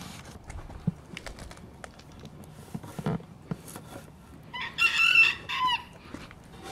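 A rooster crowing once, a call of about a second and a half with a falling end, a little past the middle. Scattered faint clicks and rustles sound before it.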